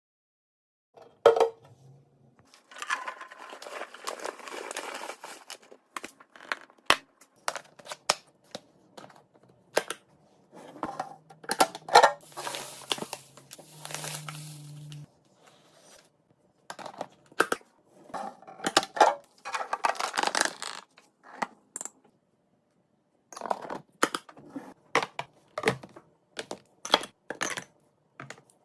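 Restocking sounds: a string of light clicks, clinks and knocks as packaged items and containers are handled and set down, with bursts of rustling and crinkling packaging.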